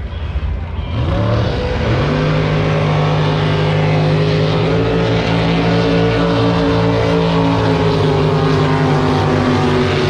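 Racing drag boat engine revving up about a second in, then running loud and steady at high revs.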